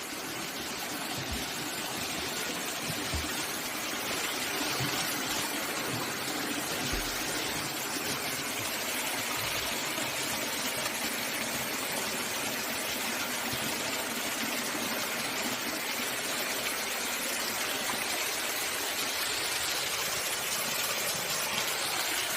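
Mountain stream water rushing steadily over rocks, a dense, even hiss that swells a little over the first few seconds and then holds.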